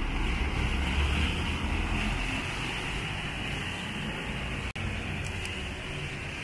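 Traffic on a rain-wet street: a low engine rumble under a steady watery hiss of tyres on wet asphalt, loudest in the first two seconds and then easing off, with a brief break in the sound just under five seconds in.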